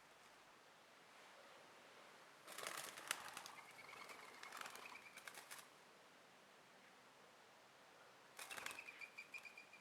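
Birds flying past twice, each pass a quick flutter of wingbeats with a thin, steady whistle in it.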